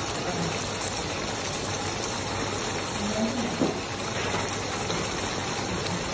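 Red sauce for fried macaroni simmering in a wok, bubbling with a steady hiss. A faint tick comes about three and a half seconds in.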